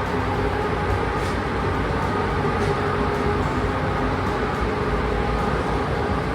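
Steady machine noise: a constant rushing hum with a few faint steady tones, unchanging throughout.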